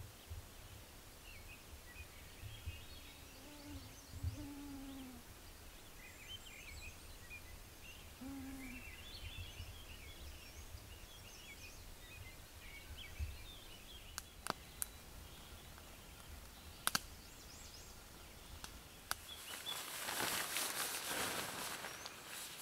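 Outdoor woodland ambience with faint bird chirps and a low hooting call heard twice. A few sharp clicks follow, then a louder rushing noise near the end.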